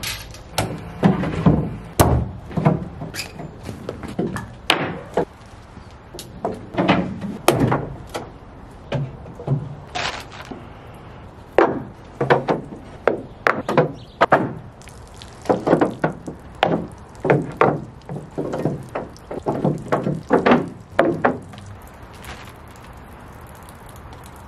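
Irregular knocks and thumps of plywood panels being handled and fitted against a plywood boat hull, coming in clusters and thinning out near the end.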